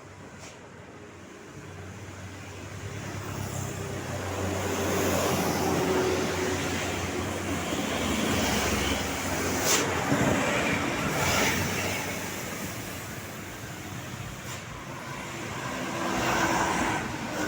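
Road traffic: vehicles passing, the noise swelling about five seconds in, easing off, then rising again near the end.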